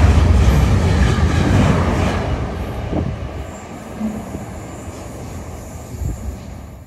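Diesel freight locomotive passing close by and drawing away, its deep engine rumble and rail noise loud at first and fading steadily. There is a sharp click about three seconds in.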